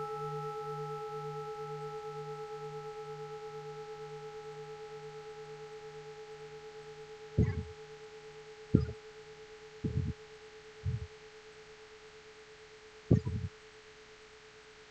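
A large Buddhist temple bell ringing on after a strike: a low pulsing hum under steady higher tones, slowly fading. From about halfway in, five short animal calls cut in, the last near the end and each louder than the fading bell.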